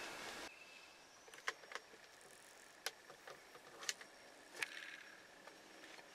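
Quiet outdoor woodland ambience: faint steady high-pitched tones, with five or six scattered sharp ticks and clicks. A louder rushing noise cuts off about half a second in.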